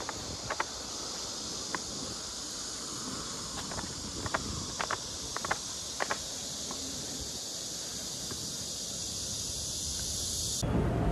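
Steady high-pitched chorus of insects chirping, with a few scattered light clicks. It cuts off abruptly near the end, and a louder low rumble takes over.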